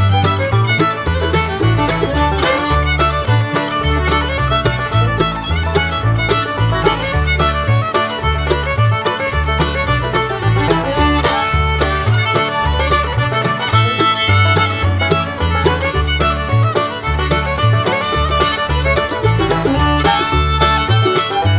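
Background music, a fast fiddle-led tune over a steady bass beat.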